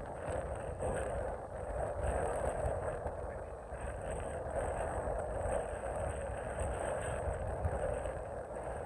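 Truck hauling a loaded trailer at low speed: a steady engine drone and rumble.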